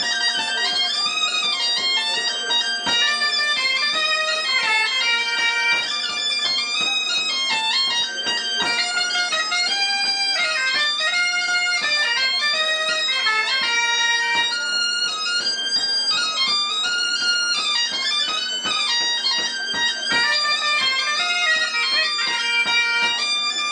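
Bombarde and biniou, the small Breton bagpipe, playing a gavotte tune together: a bright, piercing reed melody over the biniou's steady drone.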